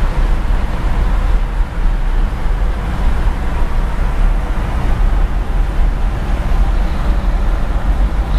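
Caterpillar IT62H wheel loader's diesel engine running as the machine travels with a load on its forks: a steady low rumble.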